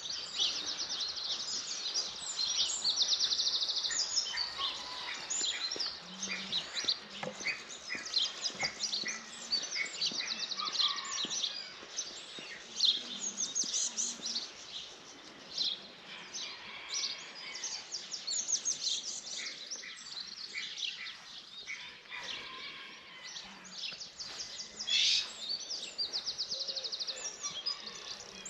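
Dawn chorus of several songbirds singing at once: overlapping chirps, whistled notes and fast high trills.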